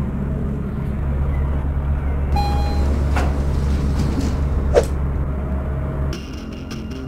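Elevator car in motion: a steady low hum and rumble that cuts off about six seconds in. A brief tone and a couple of short clicks sound along the way.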